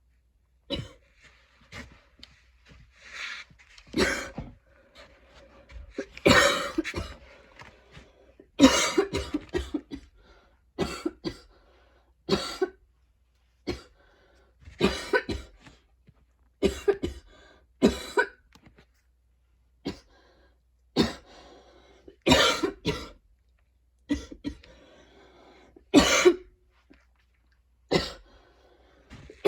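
A woman's harsh, repeated coughing fit, the coughs coming in quick runs of two to four with short gaps between. It is a painful, choky attack, which she puts down to going to the gym two days in a row.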